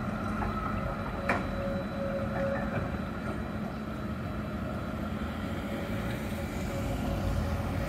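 Stadler Variobahn low-floor tram running through a curve and moving away: a steady rumble with thin steady tones above it, and a single sharp click about a second in.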